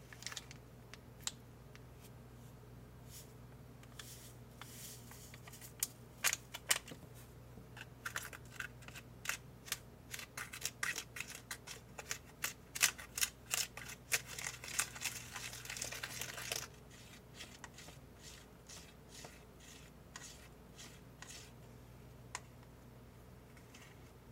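A small plastic spoon stirring and scraping chocolate cream candy mix in a plastic tray: a dense run of quick scratchy clicks from about a third of the way in that stops suddenly about two-thirds through. Before it come scattered clicks and crinkles of the mix packet being handled, and after it a few light taps of the spoon.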